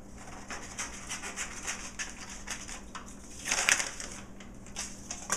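Scissors snipping through printer paper, with the sheet rustling as it is handled; a louder rustle about three and a half seconds in.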